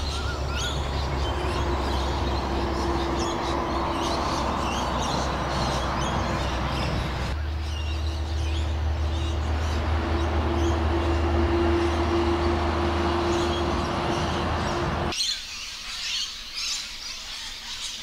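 Road traffic on a highway bridge: a heavy truck's steady engine drone and tyre noise, with birds chirping over it. About fifteen seconds in the traffic cuts off suddenly and only scattered birdsong remains.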